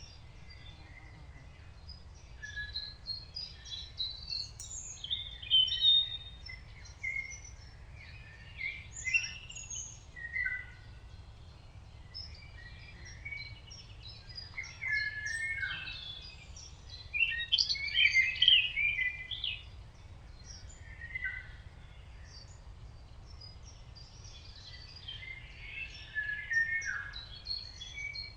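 Several wild songbirds singing and chirping over one another in short phrases and trills, busiest about a third and two-thirds of the way through, over a faint steady low background rumble.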